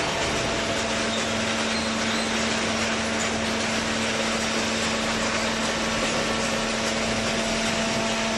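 Vertical hydraulic cardboard baler running, its hydraulic pump motor giving a steady hum over a constant mechanical noise; the hum comes in just after the start.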